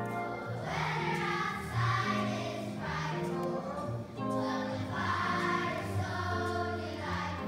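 Children's choir singing over instrumental accompaniment; the voices come in about half a second in.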